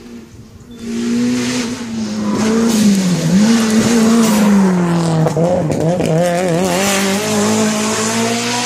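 Mitsubishi Lancer Evolution's turbocharged four-cylinder engine at racing revs as the car takes a hairpin. The engine note comes up loud about a second in, dips briefly, runs lower through the bend, then climbs again as it pulls away.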